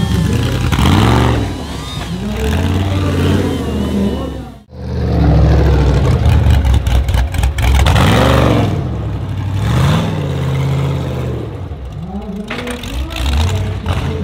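Rock-crawler buggy's engine revving up and down again and again as it drives the course and climbs over concrete blocks, each rev rising and falling over a second or two. The sound drops out for a moment a little under five seconds in, then the revving resumes.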